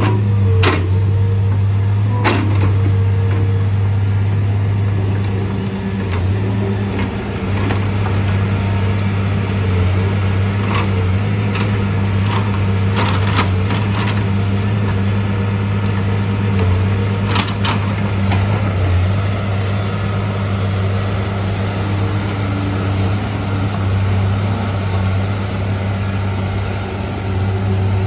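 Diesel engine of a Cat tracked log loader running steadily as the machine swings its boom and grapple. Sharp metallic clanks come a handful of times, twice in the first few seconds and a cluster around the middle.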